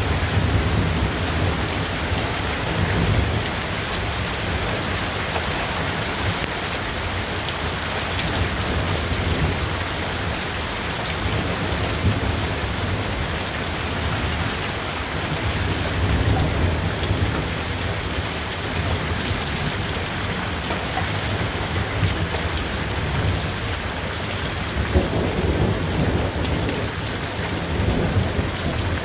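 Thunderstorm: steady rain hissing down, with low rolling thunder that swells and fades several times.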